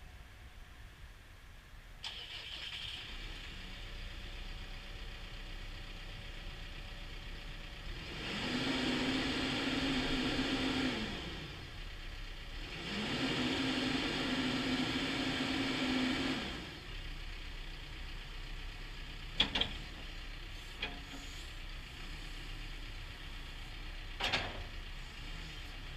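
CAT 420F backhoe loader's diesel engine starting about two seconds in and idling. It is revved up twice for a few seconds each, rising, holding, then dropping back to idle. Later come a couple of sharp knocks.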